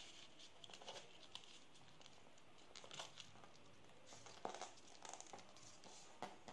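Faint rustling and crinkling of a sheet of origami paper being folded and creased by hand, with scattered small ticks as fingers press and rub the paper.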